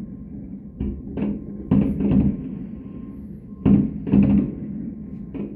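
Distant fireworks going off in daylight from a platform on the lake: about seven deep booms at irregular spacing, some in quick pairs, each trailing off in a short echo.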